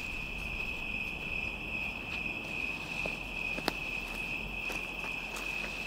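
Crickets chirping in a steady, unbroken high trill, with a few faint clicks, the sharpest a little past the middle.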